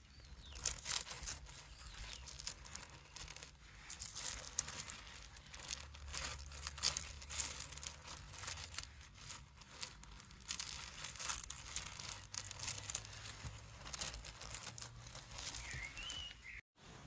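Close-up crinkling and rustling of a dry, soft material being handled: a dense run of small crackles with brief lulls. A faint short whistle-like chirp comes in near the end.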